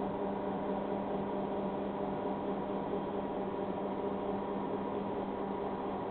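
Daco U350L label unwind's automatic roll lift raising a roll of label stock: a steady electric hum on one unchanging low pitch.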